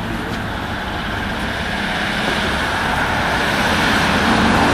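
Road traffic passing close by on a multi-lane street: a steady rush of tyres and engines that grows louder toward the end as vehicles approach.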